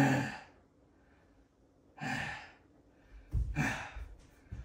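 A man breathing hard and sighing while he recovers from push-ups done to exhaustion: three heavy, breathy exhales a second or two apart, the first and loudest with some voice in it.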